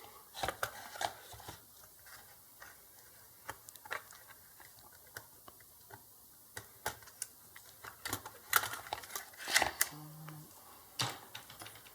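Scattered light clicks and taps of plastic and small parts being handled as the door opener's circuit board is worked loose from its housing, irregular and sparse, with the loudest clicks about three-quarters of the way through.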